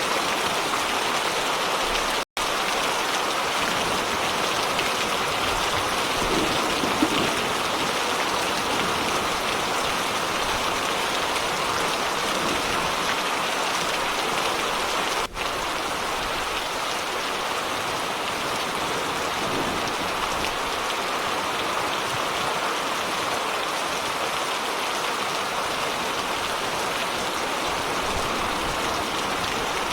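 Steady rain falling, an even dense hiss with no pauses. The sound cuts out completely for an instant about two seconds in and dips briefly about fifteen seconds in.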